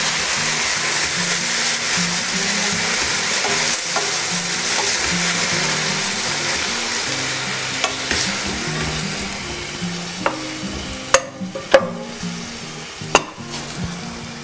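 Tomatoes and vegetables sizzling in a frying pan while being stirred with a wooden spatula. The sizzle gradually fades, and near the end there are three sharp knocks of the spatula against the pan.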